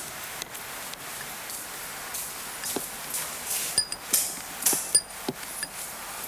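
Steady hiss with scattered light knocks and a few brief high metallic clinks, more of them in the second half.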